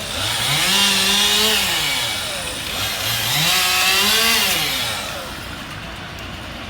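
Two-stroke chainsaw revved up twice: each time the engine climbs quickly to full speed, holds for about a second and a half, then drops back toward idle.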